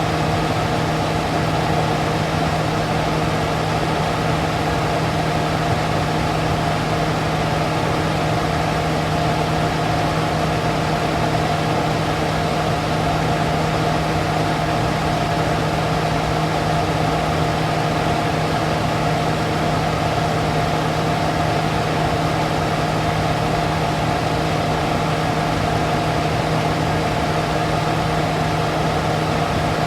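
Smoke extractor fan running steadily: a low motor hum and a higher whine over a constant rush of air.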